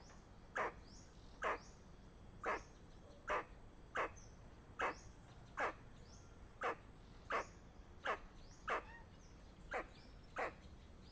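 Squirrel giving its alarm call: short, sharp calls repeated at about one a second, each call the same, warning of danger.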